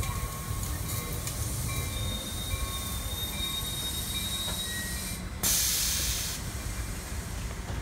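ACE commuter train of bi-level passenger cars rolling slowly to a stop at the platform, with a steady low rumble and a faint high wheel squeal. About five seconds in, a sudden loud burst of air hiss lasts about a second.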